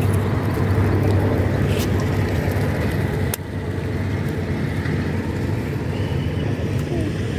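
A steady low motor drone, with a single sharp click about a third of the way through.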